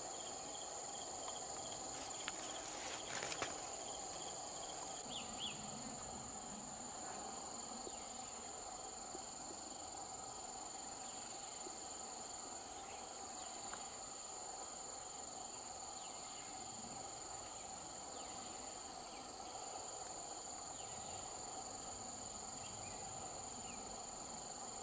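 Steady high-pitched insect chorus, trilling without a break, with a few faint clicks about two to three seconds in.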